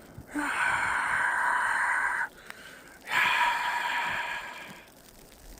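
Two long, loud breaths blown out close to the microphone, each lasting about two seconds, the second starting about three seconds in and fading out.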